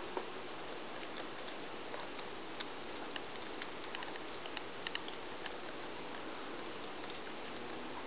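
Laptop keyboard keys tapped one at a time at an uneven pace by a small child, sharp little clicks with a few coming close together about five seconds in, over a steady hiss.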